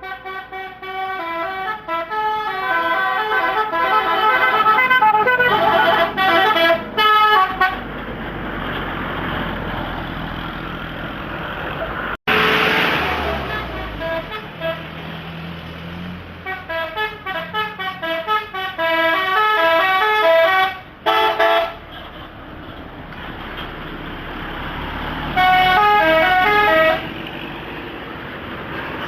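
Multi-tone 'telolet' horn of a Sumba Putra bus playing quick melodic runs of stepping notes, in three bouts: through the first seven seconds or so, again about sixteen seconds in, and briefly near the end. Between the bouts the bus engine and road traffic run steadily.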